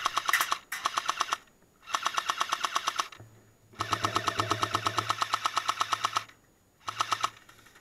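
Airsoft M60 machine gun firing full-auto in five bursts, each a rapid rattle of shots. The longest burst runs about two and a half seconds, in the middle, and the last is short, near the end.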